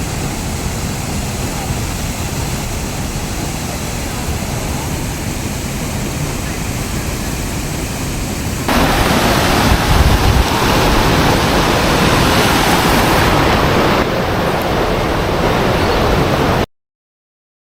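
Hot-spring waterfall rushing steadily. It gets louder and fuller about halfway through, then cuts off abruptly about a second before the end.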